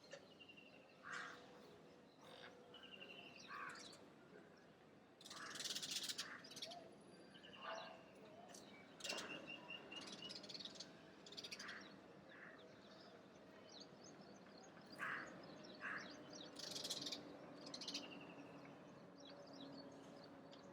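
Several wild birds chirping and calling in short, scattered bursts, including a quick run of short repeated notes about ten seconds in.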